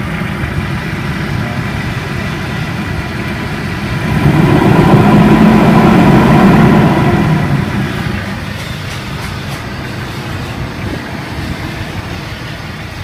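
Toyota Revo engine idling, growing louder for about three seconds in the middle before settling back to a steady idle.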